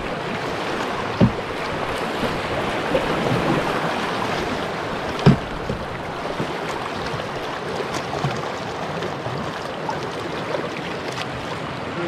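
Steady rush of river water around a canoe running toward rapids, with paddles dipping. Two brief knocks stand out, about a second in and about five seconds in.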